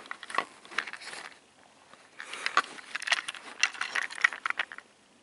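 Plastic Trackmaster toy train engine being handled and turned over by hand: irregular clicks and scrapes of plastic parts, a short spell at first, then denser clicking from about two seconds in.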